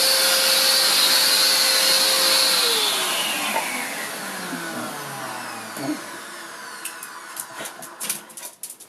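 Household vacuum cleaner running steadily, then switched off about two and a half seconds in, its motor whine falling in pitch and dying away over the next few seconds. A few light clicks near the end.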